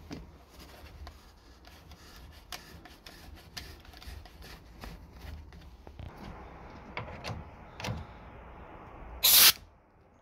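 Small clicks and knocks of a gravity-feed paint spray gun being handled, over a low steady hum. About nine seconds in comes a short, loud burst of hiss, a blast of compressed air from the spray gun.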